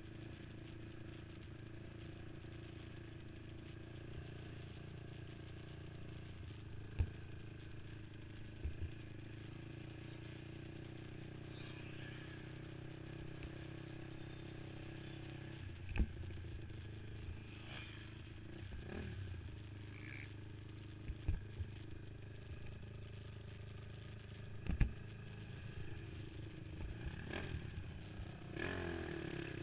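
Honda TRX450R quad's single-cylinder four-stroke engine running steadily at low revs, heard from a helmet-mounted camera, picking up a little near the end. A few sharp knocks stand out above it.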